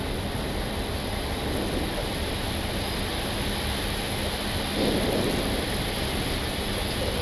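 Steady rushing of air heard in the cockpit of an Airbus A320-family airliner in flight, with a faint steady low hum beneath it.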